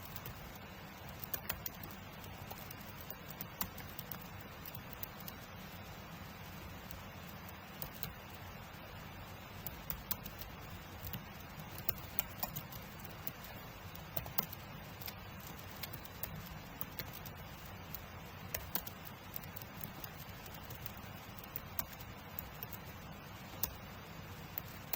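Typing on a computer keyboard: irregular clusters of quick key clicks broken by short pauses, over a steady faint hiss.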